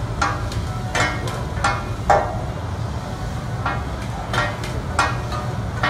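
Metal spatulas clanking and scraping on a large flat-top griddle as food is chopped and turned, in irregular ringing strikes: a cluster in the first two seconds, a short pause, then more near the end. A steady low hum runs underneath.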